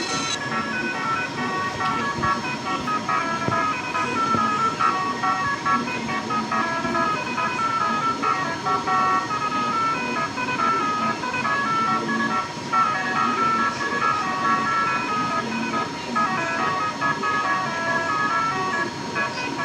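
Telolet multi-tone bus horn playing a melody of short notes that step up and down, with one steady note held beneath.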